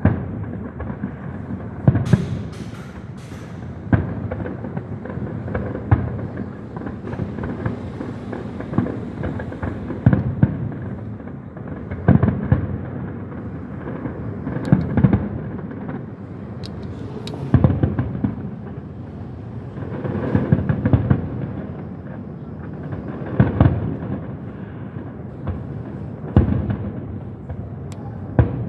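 Fireworks going off: deep booms roughly every two seconds as shells burst, with a few sharp cracks among them.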